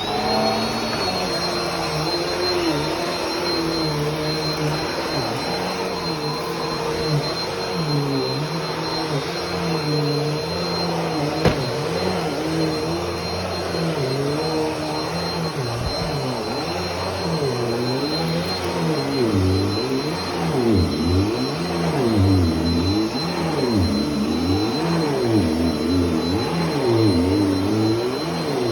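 Bissell PowerForce Compact Turbo bagless upright vacuum cleaner switching on and running. Its motor comes up to speed into a steady high whine, with a lower hum that rises and falls over and over as it is worked back and forth across carpet, more markedly in the second half.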